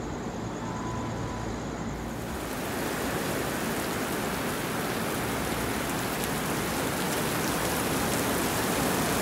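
A low, steady background rumble that gives way, about two seconds in, to a dense hiss of heavy rain falling on wet pavement and parked vehicles, growing slightly louder.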